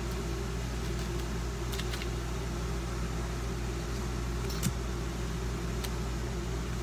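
Steady low mechanical hum, like a fan or air conditioner running, with a few faint light clicks.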